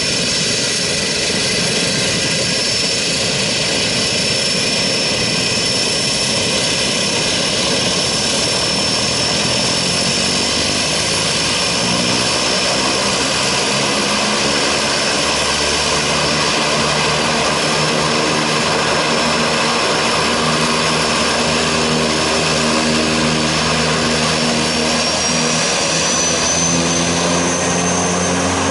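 Pilatus PC-6 Porter's turboprop engine running with the propeller turning as the plane taxis: a steady high turbine whine over the propeller's drone. The propeller tones grow clearer about halfway through, and the whine rises near the end.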